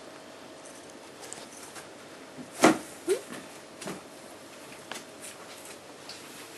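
Maine Coon cat making a few short calls, the loudest about two and a half seconds in, followed by a brief rising one.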